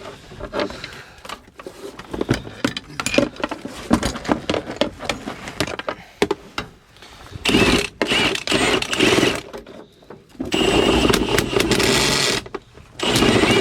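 Metal tools clinking and knocking on a truck, then a handheld power tool running in three steady bursts of a couple of seconds each, working at a stuck bolt that seems to be cross-threaded.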